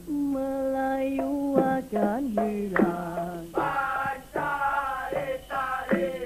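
Dikir barat solo singing: a male voice holds long, ornamented notes with slides and vibrato over the microphone, with a few short percussion strikes.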